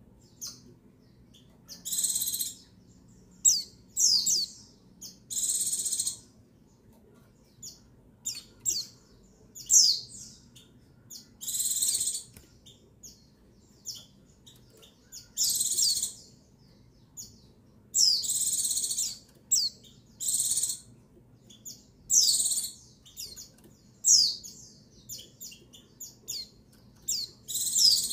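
Female white-eye (pleci) calling: bursts of high, thin chirping, each about half a second to a second long and some with quick falling sweeps, repeated every one to three seconds with short single notes between. This is the female's call that rouses male white-eyes to sing.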